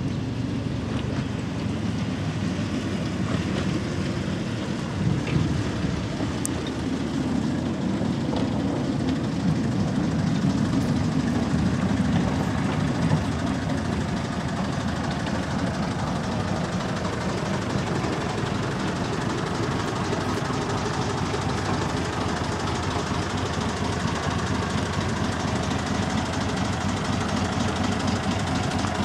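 Small narrow-gauge diesel shunting locomotive's engine running steadily as it hauls an open passenger coach slowly along the track.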